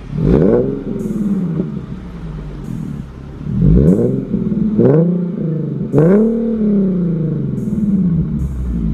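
A 2015 Infiniti Q50's 3.7-litre V6 is revved through a Motordyne cat-back exhaust. It blips four times, each a quick rise and fall in pitch, and drops back to idle in between. Another rev begins near the end.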